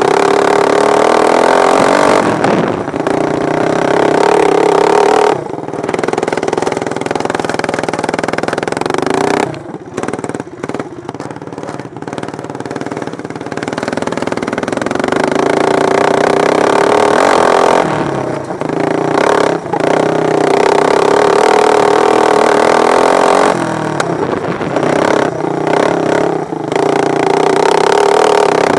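Racing lawn mower engines running at high revs, their pitch rising and falling as they accelerate and pass. The sound drops off for a few seconds about ten seconds in, then swells again.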